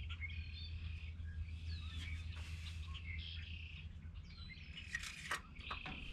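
Birds chirping and singing, a varied stream of short whistled calls and rising and falling chirps, over a low steady rumble. A couple of light clicks come about five seconds in.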